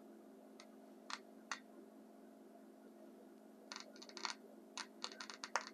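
Speaker of a 1953 Zenith L622-G tube clock radio giving faint scattered crackles and pops, sparse at first and thicker in the second half, as the set first comes alive after its tube sockets were cleaned.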